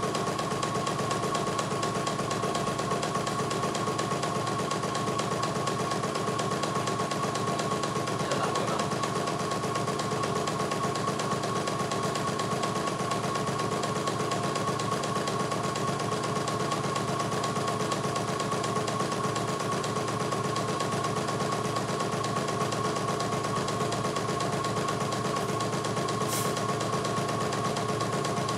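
CNY E900 portable embroidery machine running a test stitch-out of lettering, the needle going at a fast, even rate over a steady motor hum. A short click comes near the end.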